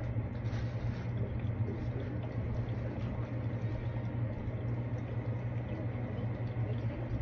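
Steady low hum with a constant fine bubbling of water, typical of the air-pump aeration in a brine shrimp hatching container.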